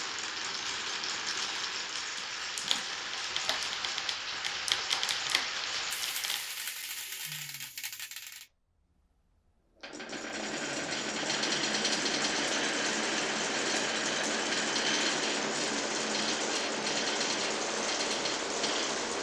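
Glass marbles rolling through a wooden marble run, a continuous rolling rattle with scattered sharp clacks. Just past the middle it cuts out for about a second, then resumes fuller and steady.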